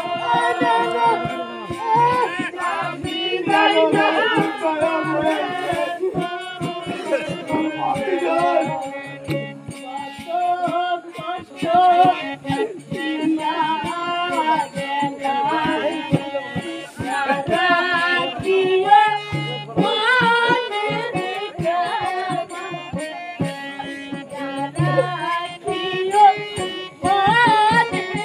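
Folk song performed live: a singing voice over hand-drum accompaniment, with a steady beat.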